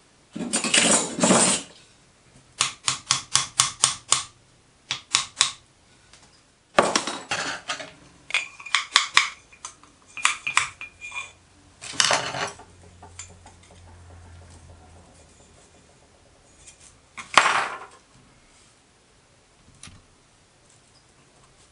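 Copper boiler parts clinking, scraping and knocking as they are handled and fitted together on a workbench: a quick run of about six light scraping strokes a few seconds in, short metallic rings around the middle, and one sharp knock near the end.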